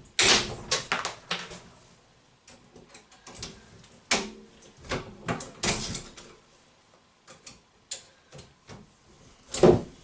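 Irregular clicks and knocks from a hand tool working on stainless steel crimp rings on PEX pipe: a burst of strikes in the first second or so, scattered ones through the middle, and a louder knock near the end.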